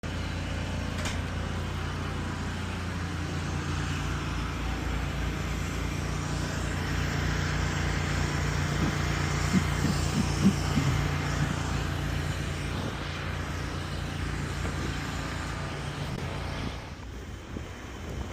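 An engine running steadily, a low hum under a broad rushing noise, with a few brief clicks near the middle; it cuts off suddenly near the end.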